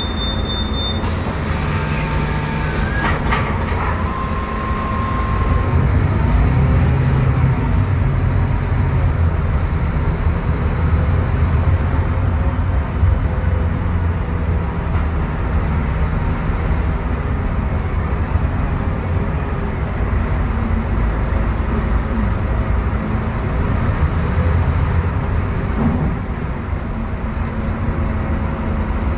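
Scania K280UB city bus heard from inside the passenger cabin: its five-cylinder Scania DC09 Euro 6 diesel rumbles as the bus pulls away and runs through traffic, its note stepping up in the first few seconds and growing louder about five seconds in. A high steady tone cuts off about a second in.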